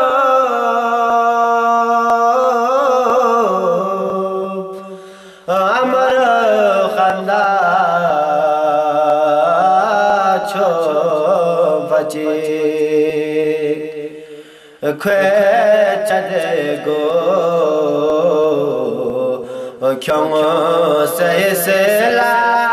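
A man's solo voice chanting a Balti qasida, a devotional poem sung in long, gliding, held phrases. The voice fades away twice, about five and fifteen seconds in, and each time comes straight back in with a new phrase.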